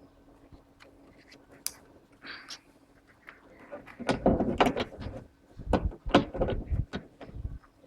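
Clicks, knocks and clatters of a repaired trunk lock assembly being handled and fitted into its place in the car's tailgate. A few light clicks come first, then a quick run of sharper knocks and rattles in the second half.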